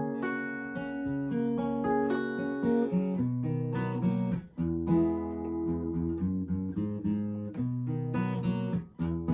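Acoustic guitar strumming and picking chords with no singing, the chords ringing and changing every second or so, with brief breaks about four and a half seconds in and near the end.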